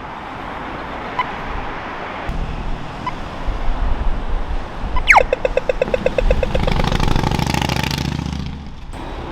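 Australian pedestrian crossing signal over city traffic. Slow locator ticks about every two seconds come first. About five seconds in, a falling electronic "zap" and a run of rapid ticking mark the change to the walk signal.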